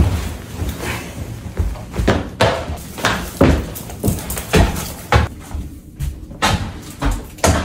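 A run of irregular knocks and bumps, roughly two a second, some louder than others.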